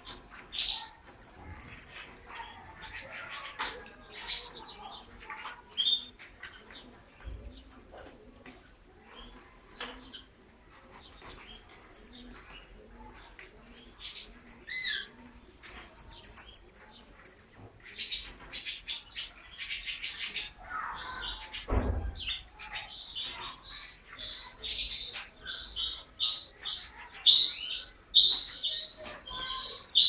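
Caged canary singing: fast runs of short, high chirps and trills, growing denser and louder near the end. A brief low thump sounds about two-thirds of the way through.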